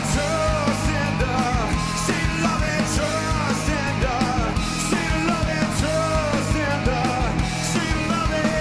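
Live rock band playing: a man singing into a handheld microphone over electric guitar, bass guitar and drums.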